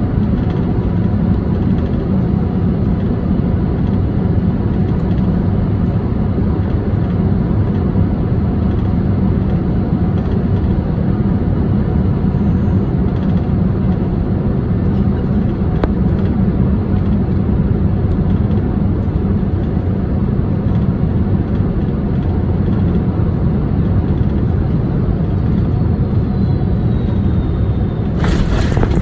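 Steady engine and airflow rumble in the cabin of a Boeing 747-400 with Rolls-Royce RB211 engines on final approach. Late on, a faint whine falls in pitch. Near the end there is a brief loud burst as the main wheels touch down on the runway.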